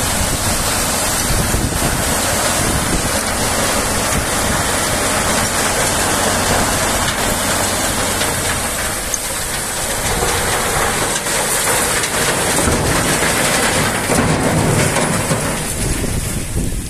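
Crushed brick and stone rubble sliding and pouring out of a raised tipper body in a continuous rattling rush, over the steady running of a Tatra 815 8x8 truck's diesel engine.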